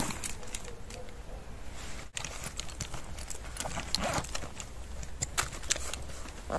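Irregular footsteps of a person walking on a wet, muddy forest floor.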